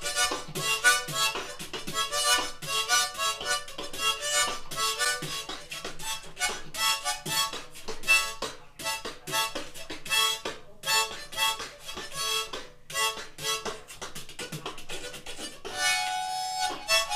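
A harmonica played in quick, rhythmic bursts of chords, with a longer held chord near the end.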